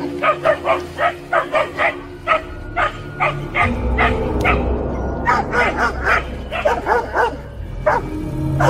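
A dog barking over and over, about three barks a second at first, the barks coming faster and more ragged in the second half.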